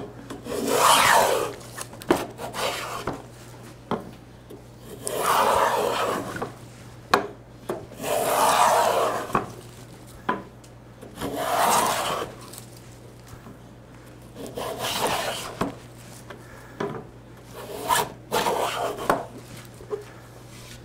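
Stanley Bedrock No. 5 jack plane taking about six long strokes along the face of a rough-sawn board, each stroke a rasping shaving cut about a second long, with sharp knocks between strokes. These are the final flattening passes that take down the scalloping left by the scrub plane and the marked high spots.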